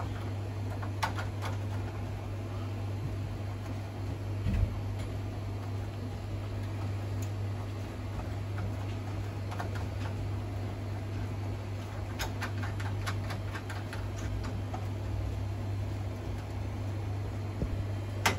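Steady low hum with scattered small clicks and taps as a part is fitted by hand into an arcade machine's front panel: one knock about four and a half seconds in and a run of clicks around twelve seconds in.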